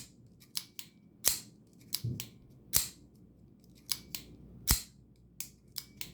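Gerber Fast Draw assisted-opening folding knife being flicked open and closed again and again: sharp metallic snaps of the blade and lock, four loud ones about every one and a half seconds, with lighter clicks between them.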